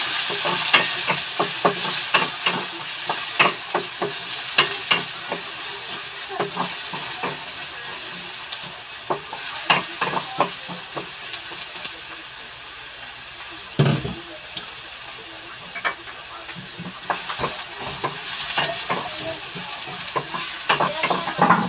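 Chopped onion and garlic sizzling in hot oil in a stainless steel pot while a wooden spatula stirs and scrapes, clacking against the pot many times, with one louder knock past the middle: the sauté (gisa) stage of the dish.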